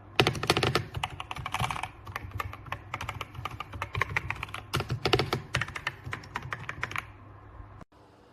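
Typing on a mechanical keyboard: a fast, dense run of key clacks that stops about a second before the end.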